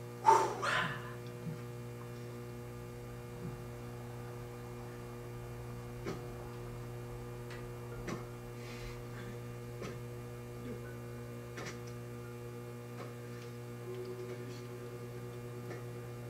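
Steady electrical mains hum with a few faint clicks, and a brief louder sound just after the start.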